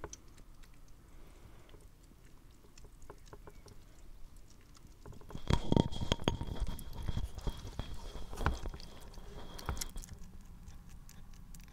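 Baby European hedgehogs chewing and smacking wet food from a plate, a quick run of small wet clicks. About halfway through, louder rustling and knocks come in as a clip-on microphone is brought close over them, along with a thin steady high tone, before it settles back to the chewing clicks.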